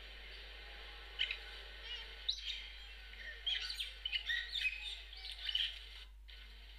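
Birds chirping: a run of short, quick calls, some sweeping upward, over a steady high background of distant birdsong.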